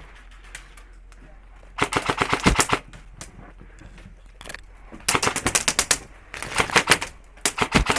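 Airsoft electric rifle firing four rapid full-auto bursts, each a fast string of sharp cracks lasting under a second.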